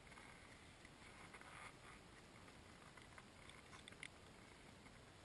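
Near silence with faint crunching of snow as a northern pike is picked up out of the snow by hand, and a few small clicks about four seconds in.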